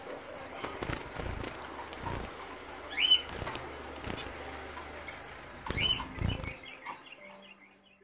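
Zebra finches moving about a cage: wing flutters and light knocks, with two short rising calls about three seconds in and again near six seconds, then a few quick soft calls as the sound fades out.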